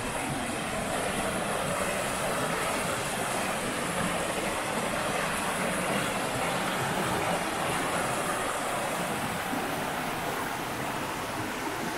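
Steady rushing of a mountain river and waterfall.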